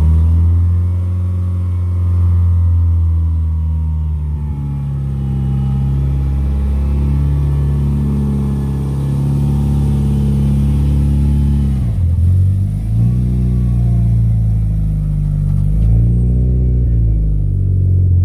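Mitsubishi Evo VIII with aftermarket GSC S2 camshafts and a Greddy exhaust, idling just after being started. The idle eases slowly down over the first several seconds, then the engine speed rises and falls briefly twice near the end.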